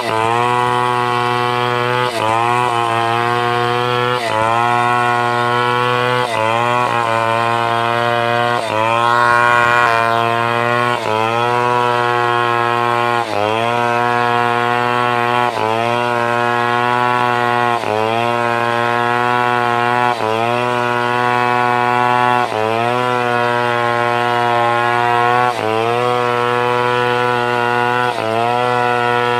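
Stihl 070 two-stroke chainsaw running at high revs while cutting timber; its pitch dips sharply and climbs back about every two seconds as the chain bites into the wood under load.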